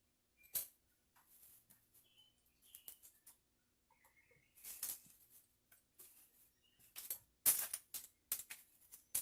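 Handling noises from tools and a window screen frame: scattered light clicks, taps and brief scraping, with a few sharper clicks over the last two seconds.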